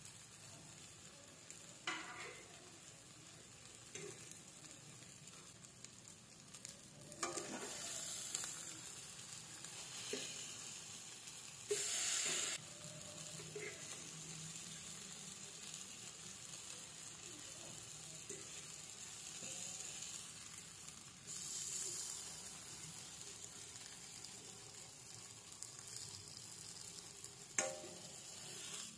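Egg-battered eggplants (tortang talong) sizzling in a nonstick frying pan. The hiss swells a few times as a fork lifts and turns them, with a handful of light taps of the fork against the pan.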